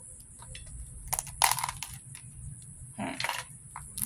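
Cooked blue crab shell cracking and snapping as it is pulled apart by hand: a few sharp cracks about a second in and a short crunching crackle near the end.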